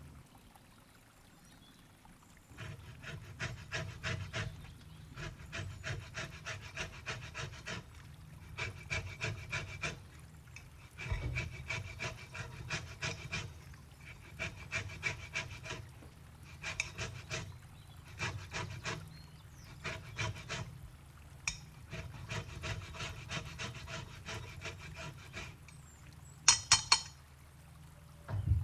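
Rapid, even scraping or tapping strokes of a kitchen utensil working on food, in repeated bursts of a second or two with short pauses between. Near the end there are a couple of sharp, loud clinks.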